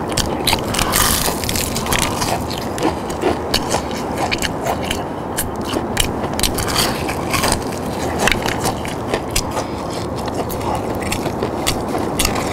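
Close-miked crunching and chewing of crispy fried chicken batter: many sharp crackles as the crust is bitten and chewed, over a steady low background hiss.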